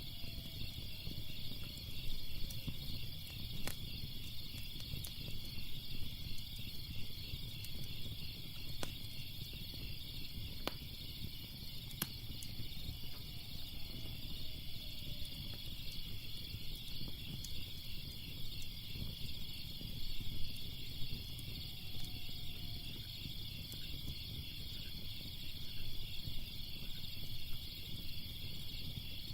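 Ambience of crickets chirping in a steady, pulsing chorus over the low rumble of a crackling fire, with a handful of sharp pops and snaps from the burning wood. A few faint falling tones drift through in the background.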